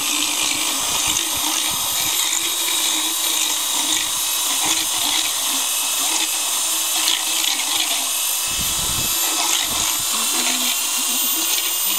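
Motorized equine dental float running steadily with a constant whine while its rotating head grinds down a horse's teeth.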